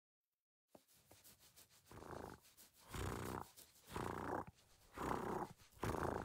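A cartoon dog voiced purring like a cat as his forehead is scratched, a sign of contentment. The purr starts faint about a second in, then comes in long rhythmic swells about once a second, growing louder.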